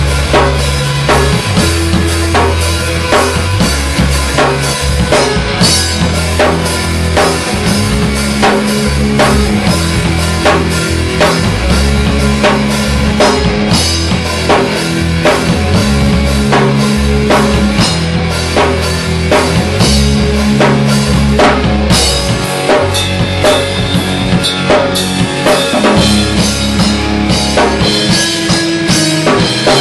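Heavy progressive metal band playing live: a pounding drum kit with bass drum and snare, under drop-tuned, extended-range electric guitar and bass chugging sustained low notes that change every second or two.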